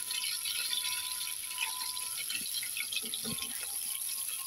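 Fish pieces and a fish head shallow-frying in hot mustard oil in an iron kadhai, sizzling and crackling steadily, with a few light knocks of a spatula turning them.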